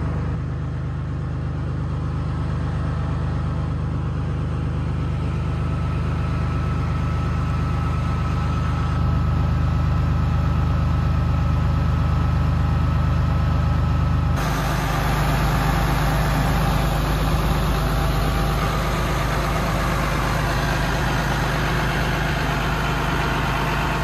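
Farm tractor engine running steadily, a low drone with a faint steady whine. About halfway through the sound changes abruptly: the whine drops out and more hiss comes in.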